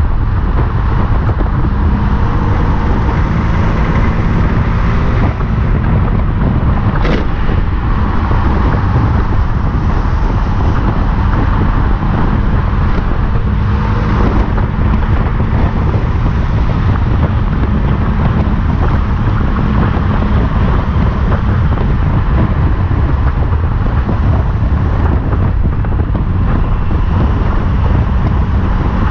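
Vehicle driving at speed: a steady, loud rumble of wind and road noise on an on-board camera, with a faint engine hum underneath and a single brief click about seven seconds in.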